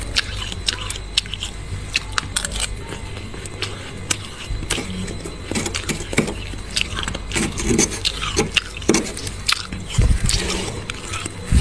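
Thick freezer frost being scraped and broken up: irregular crisp scratches and crackles of ice crystals, with a couple of low bumps near the end.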